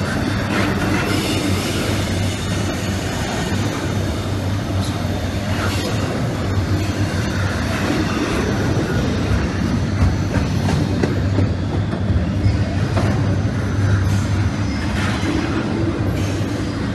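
Norfolk Southern intermodal freight train of double-stack container well cars rolling past: steady rumble of steel wheels on rail with clicking over rail joints and faint, intermittent high wheel squeal.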